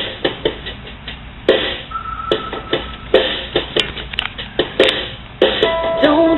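Intro of a pop song: sparse, irregular percussive hits with a short reverberant tail, then held melodic notes come in about five and a half seconds in, just before the singing starts.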